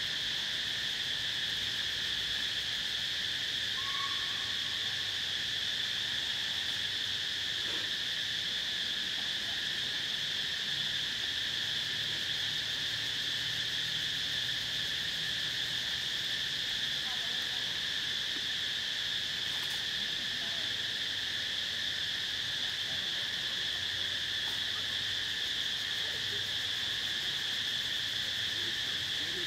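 Steady chorus of insects in forest, a continuous high-pitched drone in two even bands that does not change.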